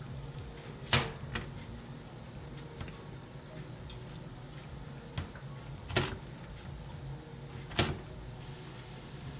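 Three sharp knocks of household objects being handled, about a second, six seconds and nearly eight seconds in, with a few fainter taps between, over a steady low hum.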